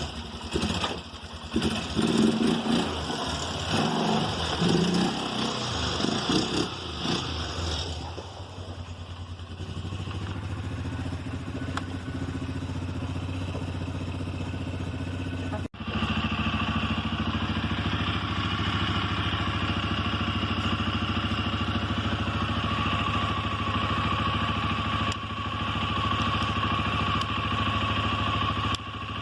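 Quad bike engine running while riding, uneven for the first few seconds and then a steady drone. The sound breaks off sharply for an instant about sixteen seconds in and picks up again, steady.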